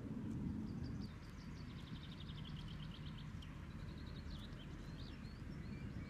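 Small songbird singing: a fast trill of repeated high notes through the middle, then scattered chirps and short whistles, over a steady low background rumble.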